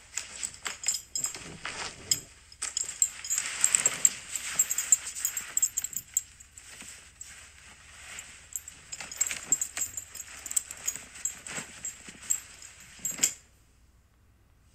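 Close-miked wet kissing and mouth sounds, a quick run of smacks and clicks that stops about a second before the end.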